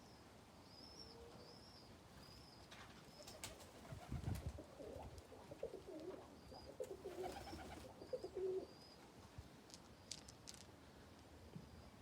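Domestic pigeons cooing, a low rolling coo from about four seconds in until about eight and a half seconds in. Faint, short, high chirps repeat throughout.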